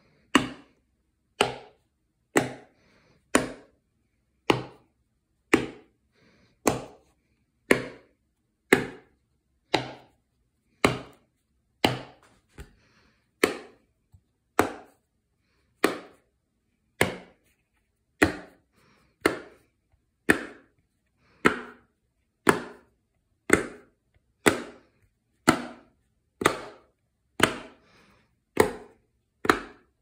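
Fat Brain Toys Dimpl Pops fidget board: silicone bubbles pressed through one at a time, each giving a sharp pop, in an even rhythm of about one a second.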